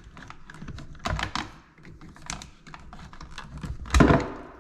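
Small clicks and taps of fingers and a tool working push-on wire connectors off the terminals of a refrigerator thermostat, with a louder clatter about four seconds in.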